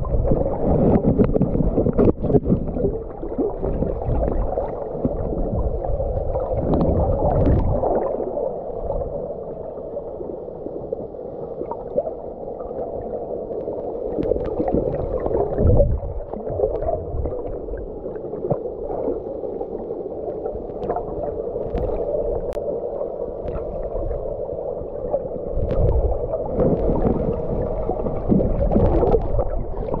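Muffled underwater sound from a camera below the surface: a steady hum with irregular low gurgling surges of water and scattered faint clicks.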